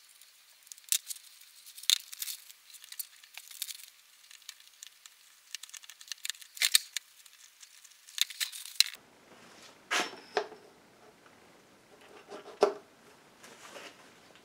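Small clicks, taps and plastic crinkling from hand work on a plastic oil filter housing cap as its O-rings are swapped with a pick. After about nine seconds the sound changes to fuller handling noise with two louder knocks.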